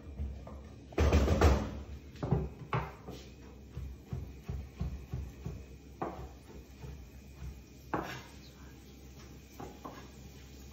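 Kitchen handling sounds: a loud clatter about a second in, then a chef's knife chopping mushrooms on a plastic cutting board, heard as single knocks and scattered light taps.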